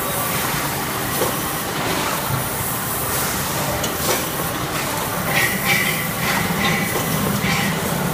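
XY-AI-500 automatic maxi-roll toilet paper band saw cutting machine running, a steady mechanical noise with hiss. About five seconds in, a higher whine with a few clicks comes in for a couple of seconds as the blade cuts a roll from the paper log.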